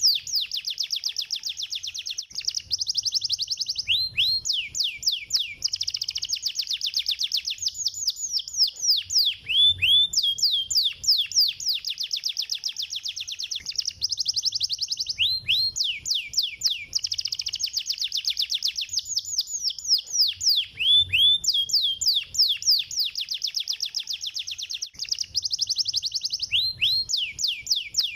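Canary song: continuous fast trills of rapid, down-slurred chirps, the same run of phrases repeating about every five to six seconds.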